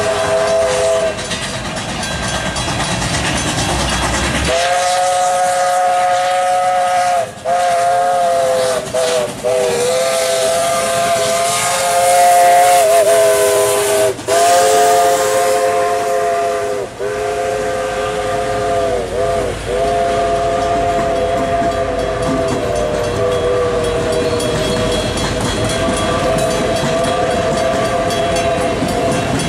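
Chinese QJ 2-10-2 steam locomotive's chime whistle, blown in long blasts with brief breaks in which the pitch sags. The locomotive passes at speed, with a loud burst of steam hiss about halfway through. The passenger cars follow, rolling by with wheel clatter.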